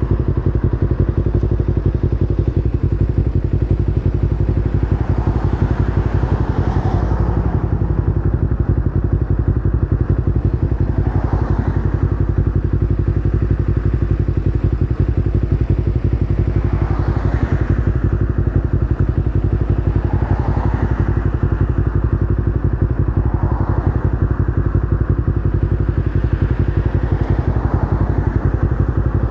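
Kawasaki Ninja 250R's parallel-twin engine idling steadily with the bike at a standstill.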